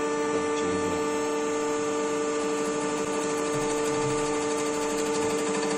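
Cylinder head resurfacing mill running, its rotating cutter head skimming a few hundredths of a millimetre off the face of an aluminium cylinder head. A steady, even hum and whine with several constant tones.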